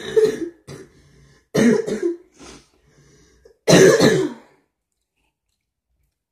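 A young man coughing hard and clearing his throat: three loud coughs about two seconds apart, with smaller ones in between.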